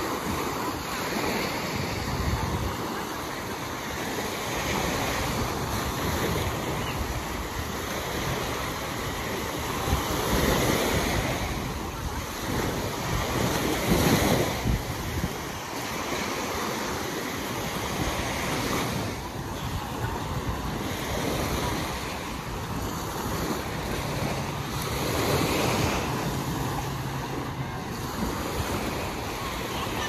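Small sea waves breaking and washing up the sand at the water's edge, rising and falling with each wave, with wind buffeting the microphone.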